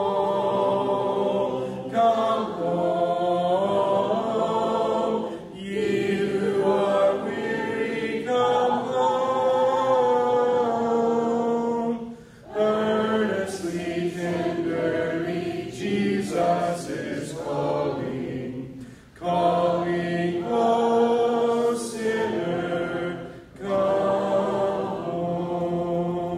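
Congregation singing a hymn a cappella, with no instruments, in long sung phrases broken by a couple of short breath pauses.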